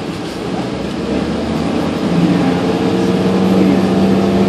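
City transit bus engine and drivetrain running, heard inside the passenger cabin; about two seconds in it gets louder and a steady low whine comes in.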